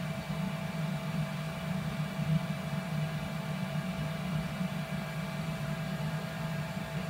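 CNC turning center's spindle running steadily, a low hum with a few faint steady whining tones above it.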